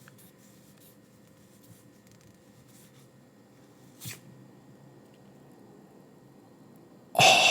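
Faint rustle and slide of trading cards being handled and flipped through, with a single light tap about four seconds in. Near the end, a sudden sharp gasp of surprise.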